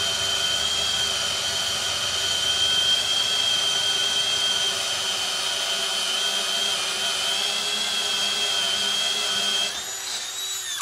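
Cordless drill running steadily under load as it turns a 1/2 inch tapered reamer through the steel of a truck frame, a constant whine with a high tone on top. Near the end the motor note rises and eases off a little, then the drill stops.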